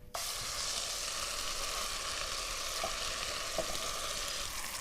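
Freshly blended curry paste of turmeric, onion, chilli, ginger and garlic sizzling steadily in a hot pan as it fries to soften, starting abruptly just after the start, with a couple of faint ticks partway through.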